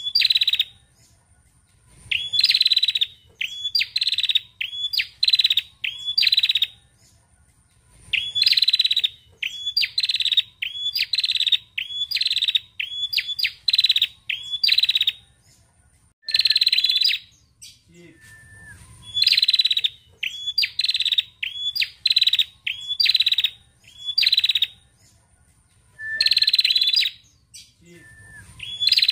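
A female tailorbird calling: loud bouts of quick, repeated high chirping notes, each bout a few seconds long, with short pauses between bouts.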